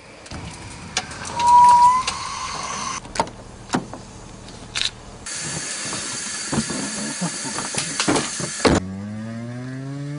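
Liquid nitrogen hissing as it is poured and boils off, with clicks and a brief loud high squeak about a second and a half in. Then comes a steady hiss with knocks and clunks from the car door and seat, which cuts off abruptly. Near the end a small hatchback pulls away, its engine note rising steadily.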